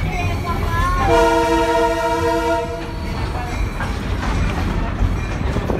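Train horn sounding one steady blast of about a second and a half, over the low rumble of the passenger carriage rolling along the track.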